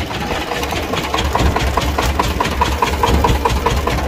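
A sugarcane juice crusher driven by the cart's small engine, running steadily with a low pulsing rumble while a cane is fed through the rollers. A light regular ticking, about four a second, joins in about a second in.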